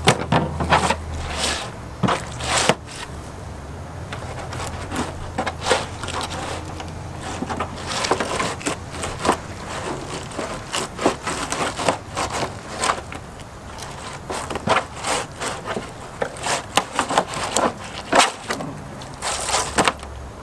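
Fillet knife cutting and scraping through a sheepshead fillet, separating meat from ribs and tough scaled skin: a run of irregular short scrapes and clicks of the blade against skin, bone and the plastic table top.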